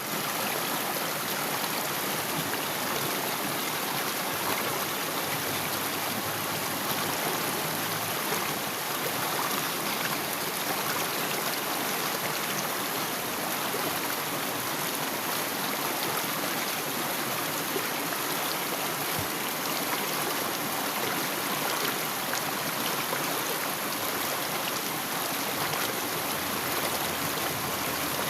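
A river stream flowing steadily over rocks, an even rush of trickling water with no breaks.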